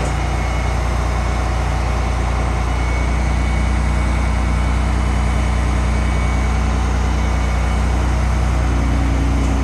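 A heavy engine running steadily at idle, an even low drone.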